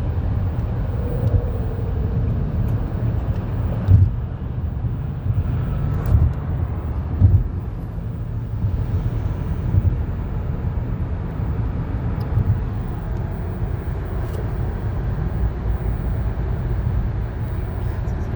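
Steady low road rumble inside a moving car's cabin, with a few brief thumps about four, six and seven seconds in.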